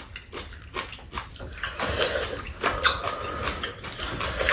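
Eating sounds from hot kimchi sujebi: slurping of the soup and spoons scraping and tapping against ceramic bowls, in short irregular bursts.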